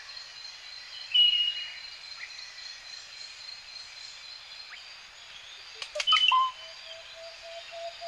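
Tropical forest in the daytime: a steady hiss of insects with a high, even insect tone, a clear bird whistle about a second in, and a burst of sharp bird calls about six seconds in. After the calls, a low note repeats in quick pulses.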